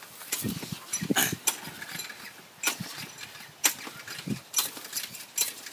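Walk-behind gas lawn mower being pull-started: several quick, irregular yanks on the recoil starter cord, each turning the engine over briefly without it catching.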